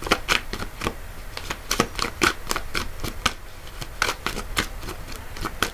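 Tarot deck being shuffled by hand to draw a clarifier card: a quick, irregular run of card clicks and slaps.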